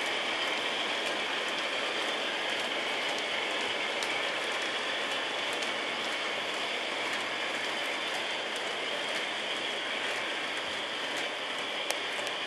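Model train running on a layout's track: a steady rolling hiss with a few faint clicks.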